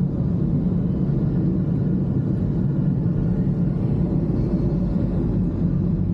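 Steady low rumble of a car's road and engine noise heard from inside the cabin while it drives.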